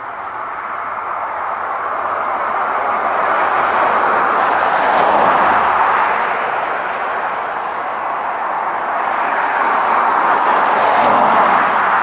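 Road traffic passing: a steady rushing noise that swells about five seconds in and again near the end.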